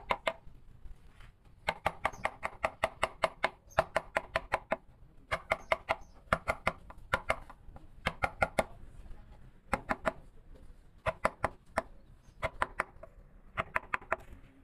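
Carving chisel struck with a mallet into wood: quick bursts of light, sharp taps, several a second, with short pauses between the bursts.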